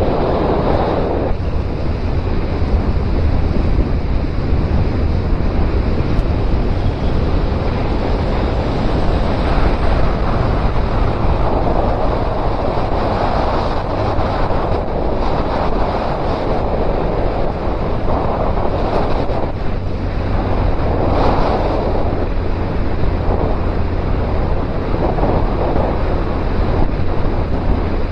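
Wind rushing over the microphone on a moving Suzuki Bandit 1250 motorcycle, swelling and easing in gusts, with the inline-four engine's steady low drone underneath.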